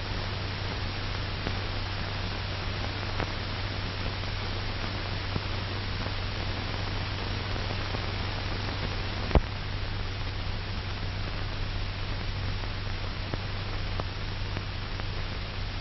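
Steady hiss and low hum of an old film soundtrack with no narration or music, with a single sharp click about nine seconds in.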